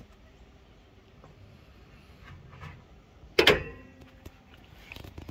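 A single loud metallic slam about three and a half seconds in, with a short ringing after it, followed by a couple of lighter clicks: the Toyota 4Runner's bonnet being shut.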